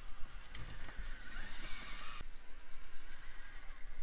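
Micro RC crawler's prototype LGRP brushless motor and drivetrain whining as it crawls, the pitch rising and falling with the throttle, with a few sharp knocks of the tyres and chassis on the rocks. The whine stops abruptly a little over two seconds in.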